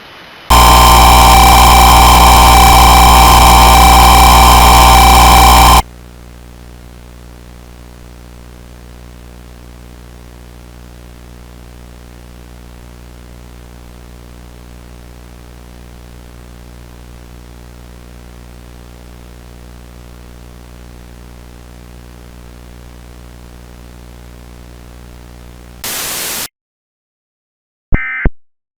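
Broadcast signal breaking up into harsh static. It starts with a very loud, distorted blast of noise with steady tones through it, lasting about five seconds. It then drops to a quieter steady hiss with a buzzing hum for about twenty seconds. Near the end there is a brief burst of static, a moment of silence, and the start of a short high electronic beep.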